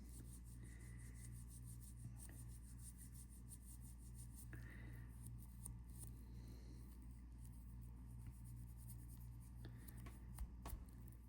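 Faint, scratchy rubbing in many quick strokes as a G-Shock watch part is scrubbed to remove small marks, over a low steady hum. A few sharper clicks come near the end.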